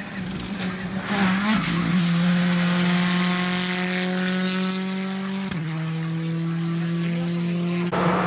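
Rally car engines held at high, steady revs as the cars pass, in a run of short clips of different cars. The engine note changes abruptly at each cut, about a fifth and two-thirds of the way in and again near the end.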